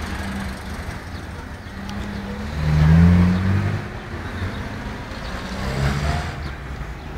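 Motor vehicle engine running in street traffic, with one engine rising in pitch and growing louder about three seconds in, then easing off.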